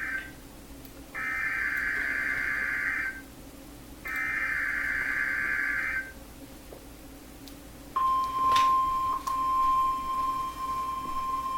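NOAA Weather Radio Emergency Alert System broadcast: the SAME digital header, a harsh warbling data squawk, ends one burst and then sounds twice more for about two seconds each with short gaps between. About eight seconds in, the steady 1050 Hz NWR warning alarm tone begins. Together they mark the start of a tornado watch alert.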